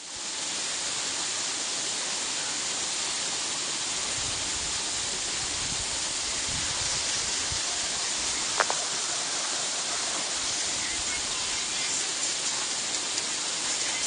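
Waterfall pouring into a partly frozen pool: a steady, even rushing of falling water, with one sharp click about halfway through.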